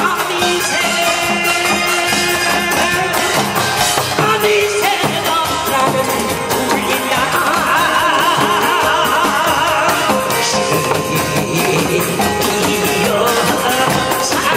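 Pumba show music: a man sings a trot-style song with vibrato through a loud PA, over backing music with percussion.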